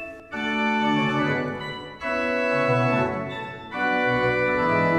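Pipe organ playing full held chords. Three chords or phrases enter in turn, the first just after the start, then at about two seconds and about three and a half seconds, each after a short dip in loudness.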